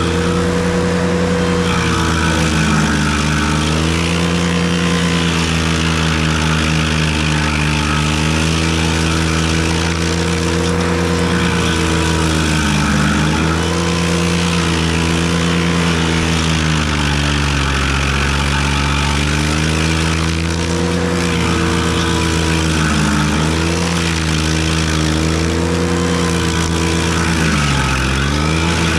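Ventrac compact tractor's engine driving a KC220 stump grinder, running at high speed with its pitch sagging and recovering every few seconds as the grinder takes load while cutting into a stump.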